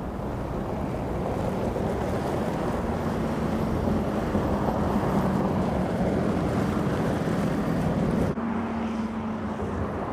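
Audi SQ7's V8 diesel engine running at a steady pitch as the SUV drives on a dirt track, mixed with tyre and wind noise. The sound changes abruptly about eight seconds in.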